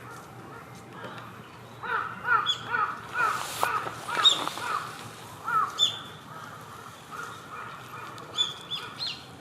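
A crow cawing in a quick run of about a dozen calls, starting about two seconds in and trailing off after about four seconds, with a few short high-pitched bird notes between them.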